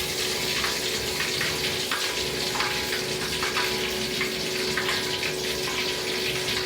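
Buttermilk-battered chicken deep-frying in hot oil: a steady sizzle with frequent sharp crackles and pops.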